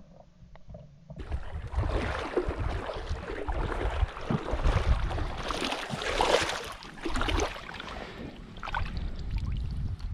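Irregular sloshing and splashing of water, with rustling, in uneven bursts that start about a second in.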